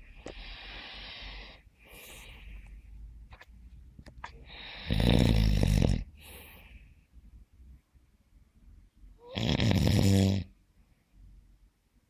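Snoring: two loud, deep snores about four seconds apart, with softer hissing breaths before and between them.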